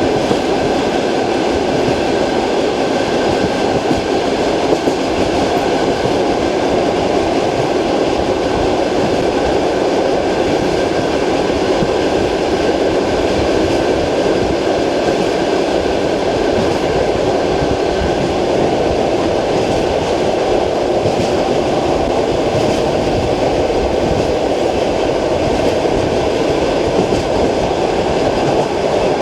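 Long-distance express passenger train running on jointed rail track, heard from a carriage window: a steady running rumble with the wheels clattering over the rail joints.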